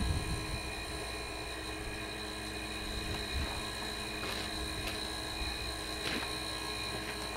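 Steady low rumble and hiss of outdoor background noise, with a few faint clicks about halfway through.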